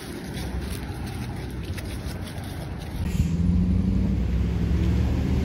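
Road traffic, with a motor vehicle's engine running as a steady low hum that comes in louder about three seconds in.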